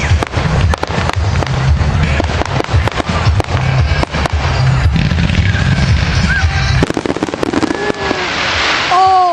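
Aerial fireworks going off in quick succession: many sharp cracks and crackles over a heavy low rumble of booms.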